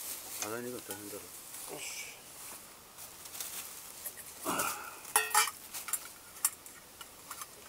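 Clatter and rustle of camp gear and plastic bags being handled and packed up, with a brief distant voice about a second in. A run of sharp knocks and clicks comes about five seconds in, as the camera is picked up and handled.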